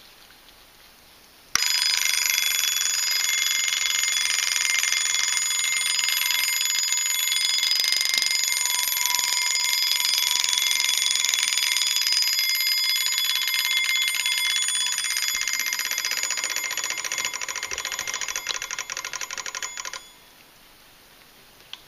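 Antique German gilt mechanical wind-up alarm clock ringing its bell alarm: a rapid, continuous hammer-on-bell ring that starts suddenly about a second and a half in. It weakens and grows uneven over the last few seconds, then stops abruptly.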